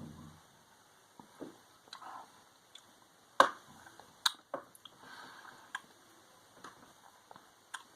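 A person sipping beer and tasting it: a few sharp lip smacks and tongue clicks, the loudest about halfway through, with soft mouth sounds between.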